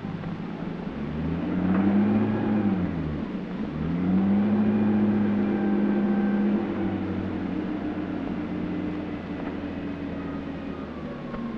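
Vehicle engine revving: its note climbs, falls away, climbs again and holds, then eases down to a steadier, lower running about two-thirds of the way through.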